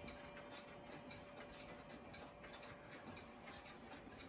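Faint ticking of several mechanical clocks running out of step. A thin lingering chime tone fades away about three seconds in.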